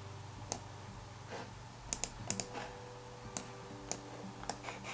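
Laptop keyboard and mouse clicks, about ten sharp clicks scattered unevenly, over a low steady hum.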